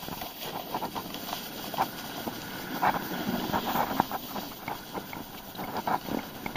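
Snowboard sliding over packed snow, its base hissing and its edges scraping in short irregular bursts, with wind rushing over the microphone.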